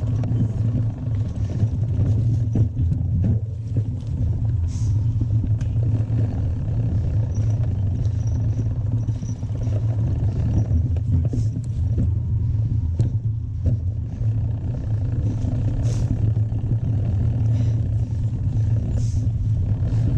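Mountain bike rolling down a trail, heard from a camera mounted on the bike or rider: a steady low rumble of wind and tyre noise, with scattered knocks and clatters from the bike over rough ground.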